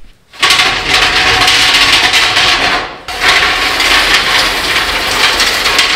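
Heavy steel sheet-metal brake dragged and scraped across a concrete floor, in two long shoves with a short pause about halfway.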